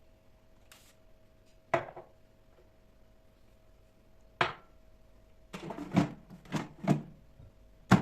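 Kitchen handling sounds: single knocks and clatters of utensils and dishes, then a quick run of about four knocks near the end, over a faint steady hum.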